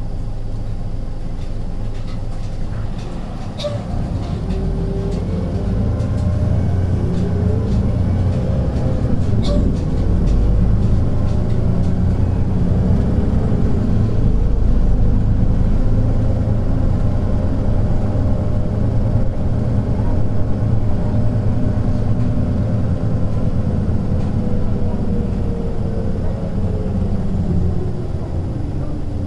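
Hino Blue Ribbon City bus's P11C inline-six diesel engine heard from inside the cabin, pulling away from a stop and building speed under load, then easing off near the end. A few short clicks and rattles are heard early on.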